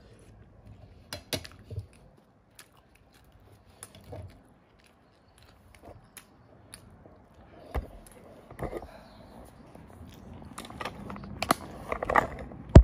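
A person eating bean stew and sausage: chewing, with scattered small clicks and knocks that grow busier and louder over the last few seconds.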